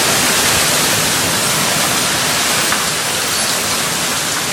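Torrential thunderstorm downpour, heavy rain pouring down as a steady, dense hiss.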